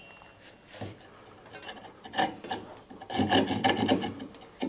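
Japanese ryoba pull saw with crosscut teeth sawing into a wooden workpiece in rasping strokes, starting about two seconds in, after a single knock about a second in.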